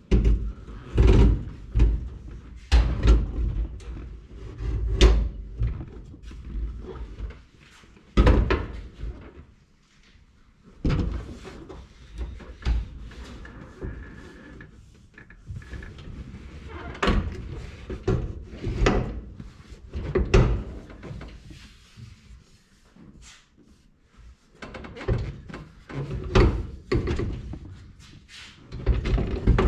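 Irregular thumps, knocks and scraping as a full-width bench seat from a 1988–98 Chevrolet pickup is wrestled into a 1948 Chevrolet pickup's cab, bumping against the cab floor and the old seat mounting plates. The seat is awkward for one person to handle.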